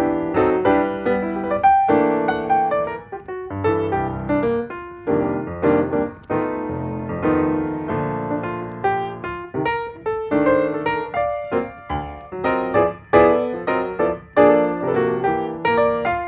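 Background piano music with quick, rippling notes and changing chords.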